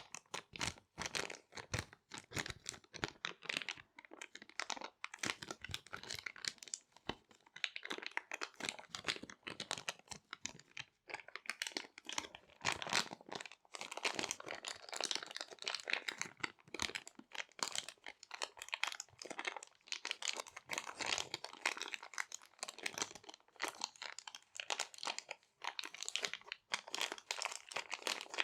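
Small resealable plastic bags being crinkled and handled: a dense, irregular run of crackling rustles.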